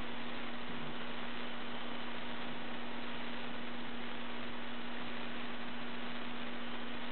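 Steady hiss with a constant low hum.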